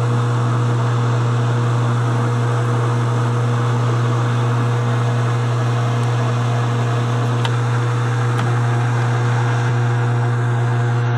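Metal lathe running with a steady hum while a boring-bar threading tool cuts an internal 20 threads-per-inch thread in a spinning aluminium ring.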